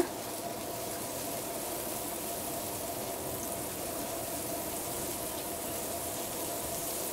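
Butter melting and sizzling on a hot nonstick flat pan as a block of butter is rubbed across it: a steady hiss.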